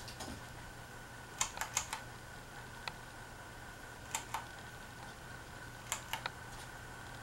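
Hunter Reverse Aire ceiling fan motor running with a steady low hum and a thin high whine, with irregular clusters of sharp clicks and taps over it.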